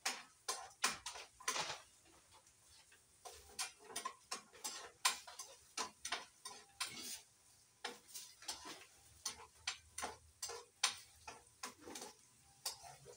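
Metal cooking utensil clicking and scraping against a pan while sautéing, in irregular quick strokes, several a second.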